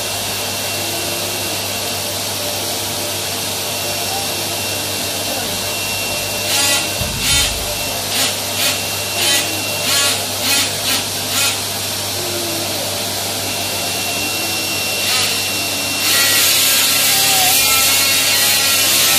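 Vacuum cleaner running steadily with a low hum, with a run of about eight rhythmic swishes between about six and eleven seconds in; about sixteen seconds in it turns louder and harsher.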